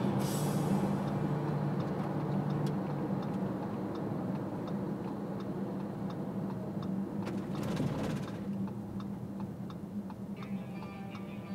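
Car engine and road drone easing off while a turn-signal indicator ticks steadily, about three clicks every two seconds.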